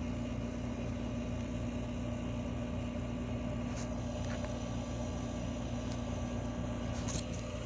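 Steady low hum with a faint held tone, and a few faint clicks.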